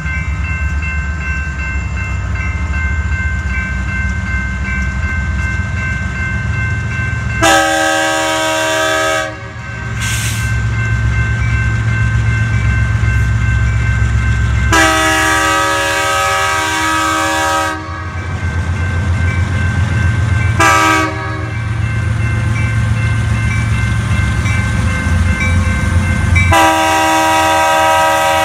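A diesel freight locomotive's multi-note air horn blows the grade-crossing signal: two long blasts, a short one, then a final long blast that is still sounding at the end. Under it is the steady low rumble of the approaching coal train's locomotives.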